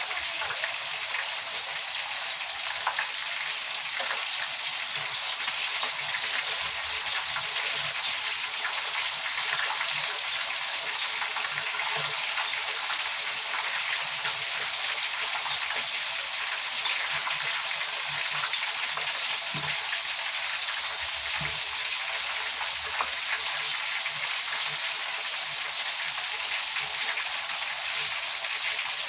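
Chicken pieces frying in a pan of hot oil: a steady sizzle with constant fine crackling.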